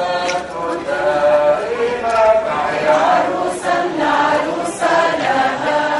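A group of people singing a hymn together as a chant, several voices on held notes.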